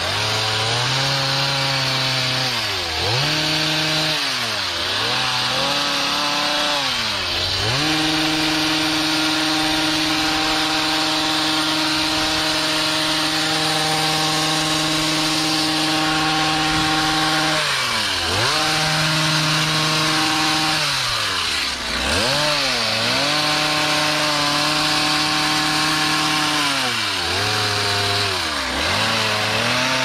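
Stihl HS56C two-stroke hedge trimmer trimming a shrub, its engine revving up and dropping back toward idle several times as the throttle is let off and squeezed again. In the middle it holds a long, steady stretch at full throttle.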